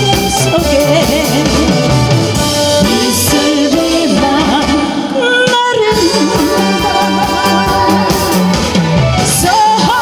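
A woman singing a Korean song into a handheld microphone over an amplified backing track with a steady beat. The accompaniment and voice break off briefly about halfway through, then carry on.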